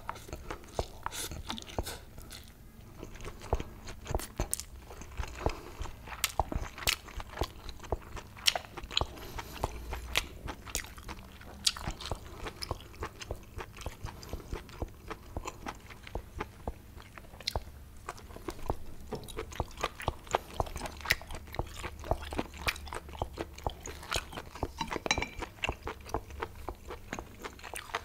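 Close-miked eating: mouth-full chewing and crunching of spicy Korean mixed noodles and boiled octopus, with many irregular sharp wet clicks and smacks.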